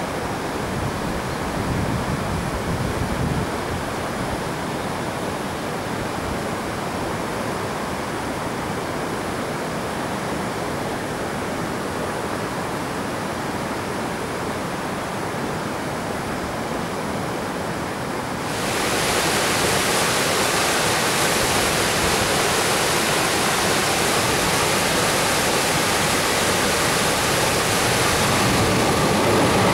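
Steady outdoor hiss with a train's rumble fading out in the first few seconds. About 18 seconds in it cuts suddenly to the louder, steady rush of a swollen, fast-flowing river. A train's rumble begins to rise under the rush near the end.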